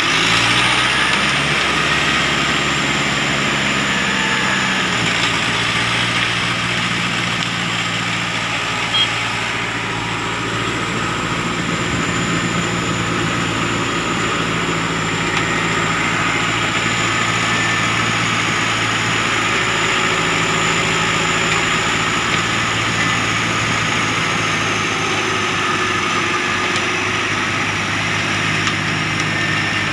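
Heavy diesel engines of a mini excavator and a concrete mixer truck running steadily during loading, with the engine note shifting about five seconds in.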